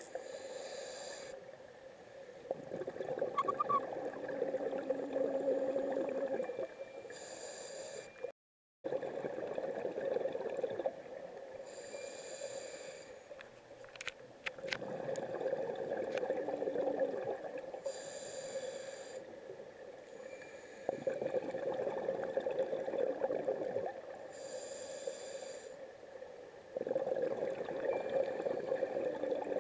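Scuba diver breathing through a regulator underwater: a short hiss on each inhale, then a few seconds of bubbling exhaust on each exhale, about five breaths in a slow, even rhythm.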